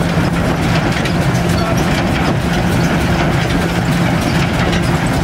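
Vintage threshing machine running steadily while being fed sheaves: a constant low hum under a dense, even rattle of its working parts.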